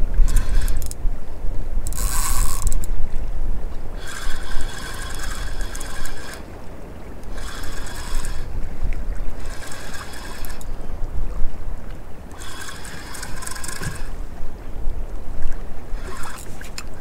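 Spinning reel buzzing in about seven short bursts of a second or two each as a large pollock is played on a hard-bent rod. Wind rumbles on the microphone underneath.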